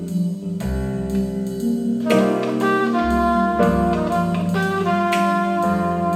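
Funky jazz instrumental played through hi-fi loudspeakers: saxophone and brass lines held over bass and drums.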